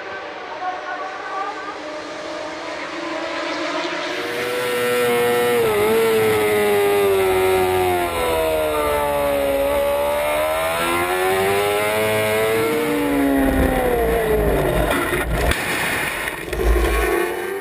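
Racing motorcycle engines at the track, then one bike's engine heard from its onboard camera. Its pitch falls, then climbs again as it brakes and accelerates. Near the end the engine note drops away into heavy low rumbling and knocks as the bike crashes through a gravel trap.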